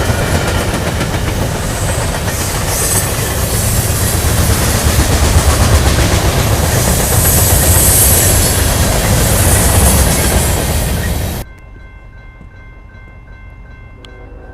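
A train passing close by, its cars' wheels clattering over the rails with a loud, steady rumble. The sound cuts off abruptly about eleven seconds in, leaving a much quieter background with faint steady tones.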